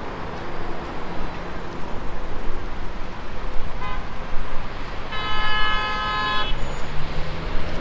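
Street traffic with a car horn sounding: a short toot about four seconds in, then a longer honk lasting about a second and a half.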